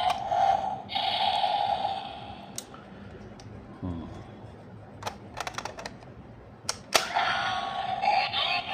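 Electronic sound effect from a Kamen Rider DX Cross-Z Magma Knuckle toy's small speaker, which stops about two seconds in. Then come a handful of sharp plastic clicks as the toy is handled, and the electronic sound effect starts again near the end.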